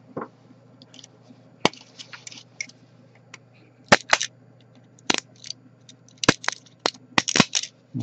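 Sharp snaps and crackles of 3D-printed plastic support material being pried and broken off a printed part with a small blade, coming in irregular bursts that grow denser in the last few seconds.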